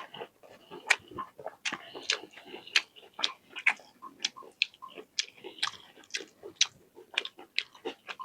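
A person chewing food, with irregular wet mouth clicks a few times a second.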